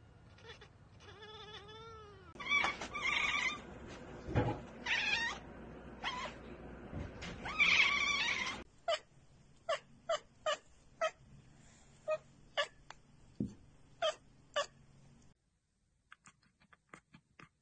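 Domestic cats chattering and chirping at prey: first a string of high, pitched chirps and trills, then a run of short, clipped 'ek-ek-ek' chatters about two a second. This is the chatter cats usually make when they see a bird or insect they cannot get to.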